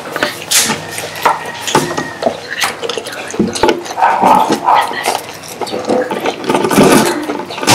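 Close-up eating sounds: wet chewing, lip smacking and finger licking of spicy fried chicken, with many short clicks, as fingers pick the meat apart.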